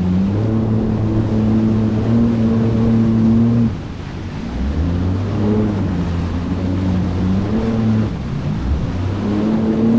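Small watercraft's engine running under throttle, its pitch dipping as the revs drop about four seconds in, then picking back up and wavering, with wind rushing over the microphone and water noise.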